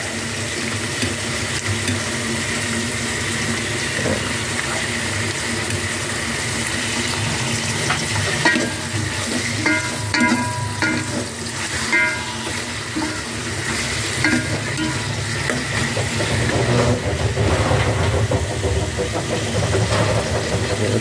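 Raw chicken pieces sizzling in oil in a metal pot over sautéed garlic, onion and ginger, stirred now and then, with a few short clinks about halfway through.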